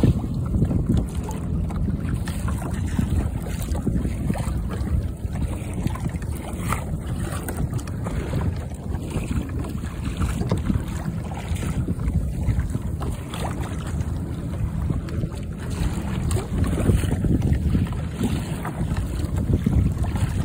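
Wind buffeting the microphone over water rushing and splashing along the hull of a moving Old Town BigWater kayak, steady throughout with frequent small splashes.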